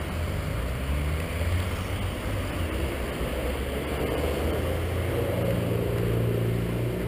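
Morning road traffic: car engines running steadily close by, with one engine's pitch rising about halfway through as a vehicle pulls away.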